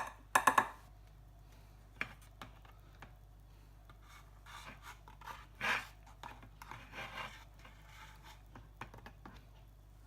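A spoon scooping cornflour and levelling it off, then tipping it into a small bowl: soft scrapes and scratches with a few light clicks, the sharpest a quick run of three clicks right at the start.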